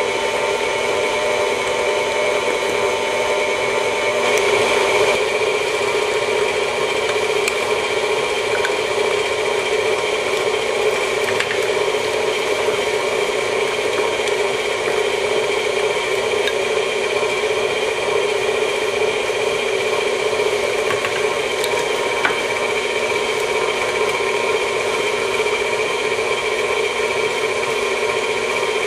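KitchenAid stand mixer running steadily with a constant hum, its flat paddle beating egg into thick choux pastry dough in a stainless steel bowl, with a few faint ticks.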